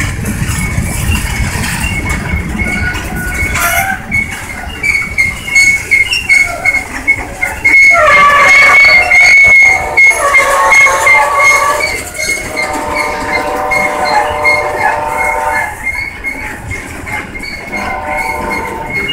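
Freight train of boxcars and tank cars rolling past close by, with the rumble and clatter of its wheels. A steady high wheel squeal runs throughout, and louder squealing tones rise over it in the middle.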